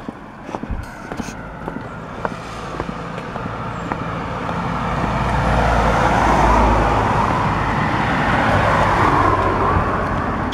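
A car passing on the road: engine and tyre noise build over a few seconds to a peak about six seconds in, then slowly fade as it moves away.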